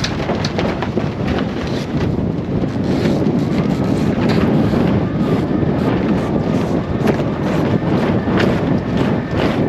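Heavy wind buffeting the microphone, a loud, steady rumble with no clear engine note.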